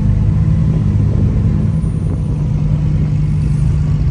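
Car engine running steadily at an even, low pitch.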